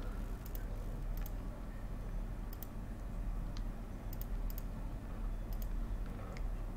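Computer mouse clicking: a handful of short sharp clicks, mostly in quick pairs, spread across a few seconds over a steady low hum.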